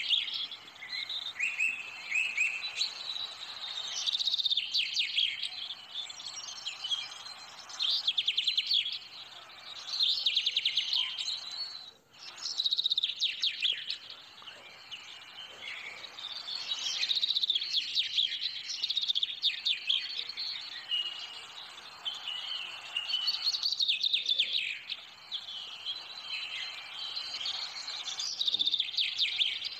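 Birds chirping and singing: bursts of quick trills and chirps come every few seconds over a steady hiss.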